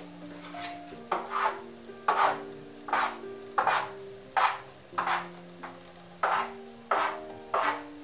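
A metal bench scraper chopping a log of yeast dough into pieces against a countertop: about ten sharp chops with a short scrape after each, a little more than one a second, starting about a second in. Soft background music plays underneath.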